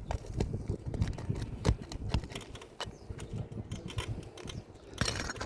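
Irregular light clicks, taps and scuffs of handling and movement on an asphalt shingle roof, over a low rumble, with a short scraping hiss about five seconds in.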